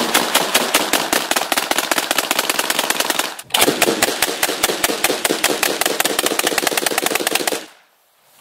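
Two AA-12 fully automatic 12-gauge shotguns fired together on full auto, the shots running into a rapid, continuous rattle. There is a brief break about three and a half seconds in, then the firing resumes and stops abruptly near the end.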